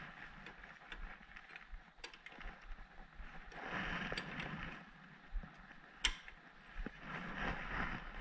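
Hands working a drive belt onto the drive pulley of a Honda HRX217 mower: quiet rubbing and scraping of belt and parts, with a few sharp clicks, the loudest about six seconds in.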